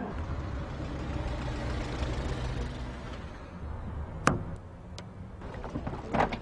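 Honda Civic's engine running low and steady as the car pulls in to the kerb, the rumble fading after about four seconds. A single sharp click follows, then a fainter one, and a short clatter of knocks near the end.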